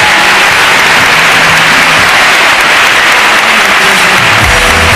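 A large audience applauding loudly and steadily, with music coming in with a low beat near the end.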